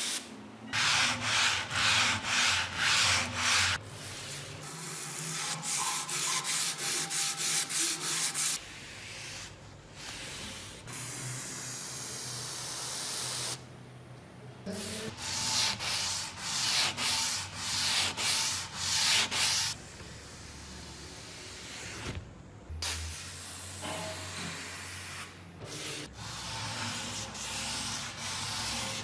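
Hand sanding of a rusty steel kukri blade: rubbing strokes in several runs of about two strokes a second, with short breaks between the runs.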